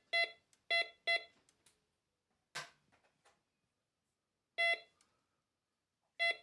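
MD-4030 metal detector giving short, clean, unbroken beeps as a coin is swept over its coil: three in the first second or so, another near the middle-to-late part and one more at the end. A clean tone like this is the detector's signal for a coin or non-ferrous metal, unlike the choppy tone it gives for iron. A short scuffing noise comes about two and a half seconds in.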